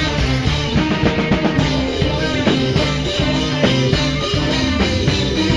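A live band playing rock music with a steady beat, guitar and a moving bass line.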